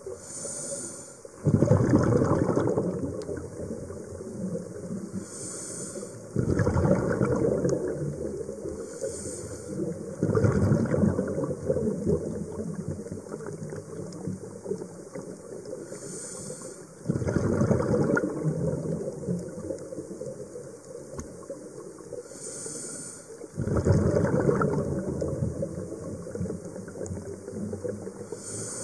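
Scuba diver breathing through a regulator underwater: a brief hiss of inhalation, then a loud gush of exhaust bubbles that fades away. The cycle repeats about every four to six seconds, five breaths in all.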